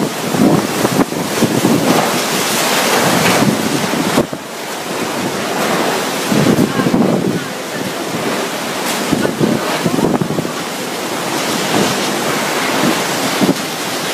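Typhoon wind blowing hard through trees and over corrugated tin roofs in loud, rising and falling gusts, with wind-driven rain.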